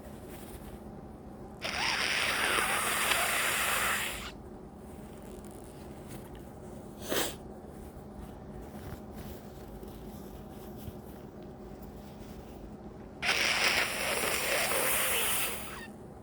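Two long, loud nose blows through a congested nose, each lasting about two and a half seconds, the first a couple of seconds in and the second near the end, with one brief sharp burst of breath between them.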